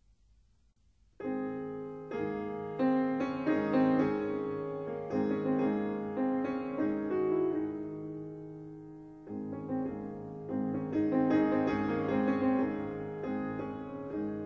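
Solo piano music, starting about a second in after a near-silent gap; single struck notes and chords that ring and fade.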